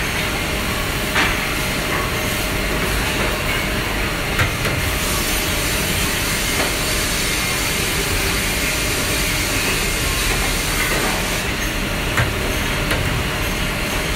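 Woodworking optimizing crosscut saw line running with a steady mechanical noise from its motors and conveyor, with a few sharp knocks of wooden strips against the machine.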